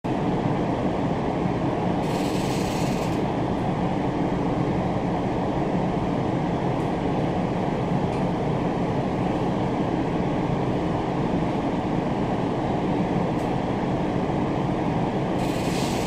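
Interior running noise of a JR East E233-series electric commuter train, a steady low rumble, broken twice by a brief harsh high-pitched noise about a second long, about two seconds in and again near the end. This is what the uploader records as an abnormal noise (異音) on the run.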